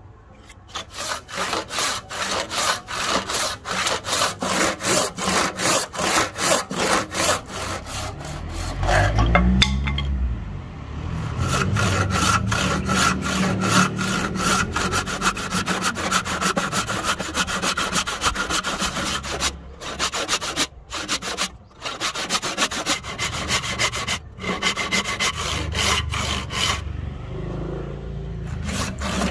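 Hand saw cutting through a rosewood blank in rhythmic back-and-forth strokes, about three a second. There is a short break about nine seconds in, then faster, steadier sawing.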